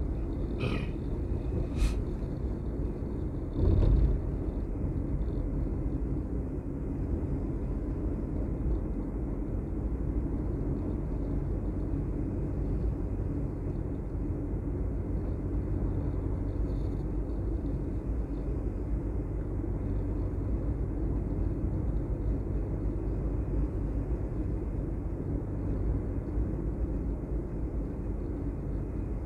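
Steady low rumble of a vehicle travelling along a road at about 40 km/h, with a short louder thump about four seconds in.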